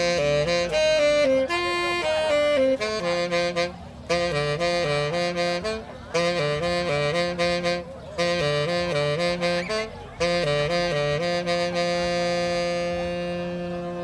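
Saxophone played live over a backing track from a small loudspeaker: short repeated phrases about every two seconds, then a final chord held long and slowly fading near the end.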